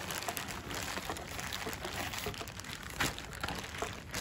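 Plastic zip-top bag crinkling and rustling as it is squished and kneaded by hand to work purple paint over the bow-tie pasta inside, with scattered small clicks and one sharper crackle about three seconds in.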